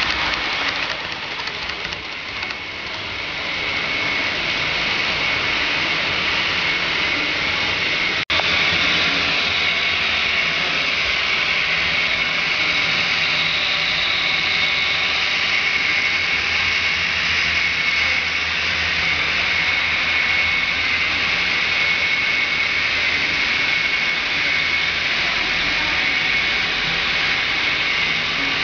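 Model trains running on a layout: a steady whirring hiss of metal wheels rolling on the rails and small electric motors.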